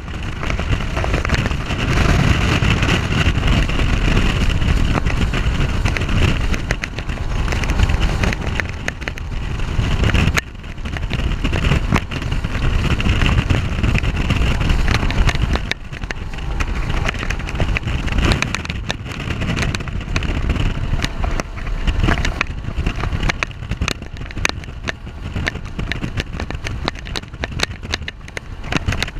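Bass boat running at speed under its Mercury OptiMax 150 two-stroke outboard: a steady loud rush of engine, wind and water, with frequent knocks, and brief dips in loudness about ten and sixteen seconds in.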